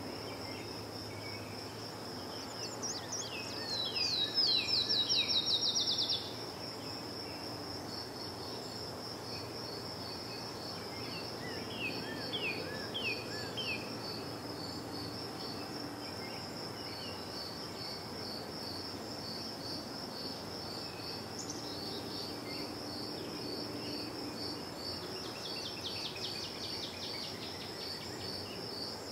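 Crickets chirping in a steady, fast pulse, with a bird singing quick series of sweeping, falling notes three times, loudest a few seconds in, over a low background hum.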